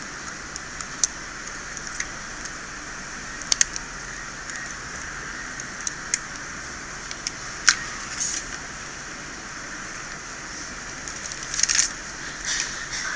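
Small metal tools clicking and scraping on an iPhone 6s Plus logic board, as a shield cap is removed and a screw-damaged hole is scraped down to the shorted VCC line. Sharp single ticks are scattered through, with a few short scraping rasps near the end, over a steady hiss.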